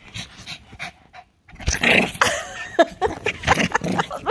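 Excited shih tzu panting and snuffling right against the microphone, then louder whining and grumbling noises with short sliding pitches from about one and a half seconds in.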